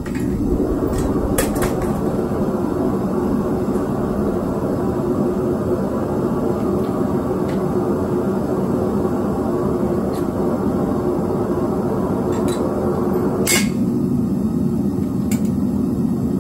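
Devil Forge FB1SB propane melting furnace burner running with a steady low rumble. A few sharp metal clinks from tongs and the furnace lid sound over it, the loudest about two-thirds of the way through.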